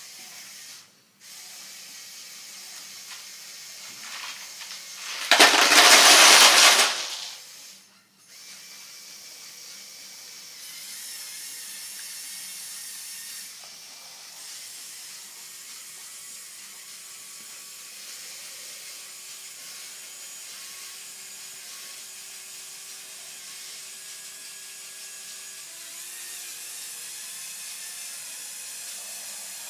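Lego Technic Volvo L350F wheel loader model running on its electric motors, a steady whine of motor and plastic gears whose pitch shifts now and then. About five seconds in comes a loud noisy burst lasting about two seconds.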